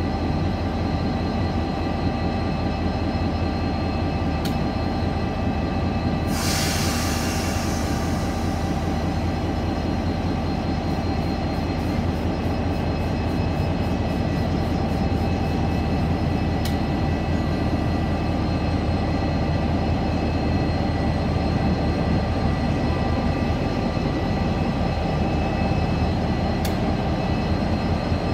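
DFB-class diesel-electric locomotive idling: a steady low engine drone with several held tones. About six seconds in comes a sharp burst of hissing that fades over a couple of seconds.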